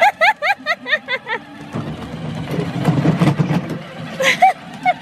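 Children's battery-powered ride-on toy Jeep driving along a concrete path: a low rumble of its small electric motor, gearbox and plastic wheels, loudest through the middle. A quick run of short high-pitched calls sounds over it at the start, and two more near the end.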